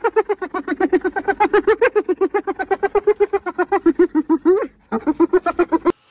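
Rapid, high laughing sound effect, a quick even string of 'ha' pulses at about eight a second, with a short break near the end before it cuts off suddenly.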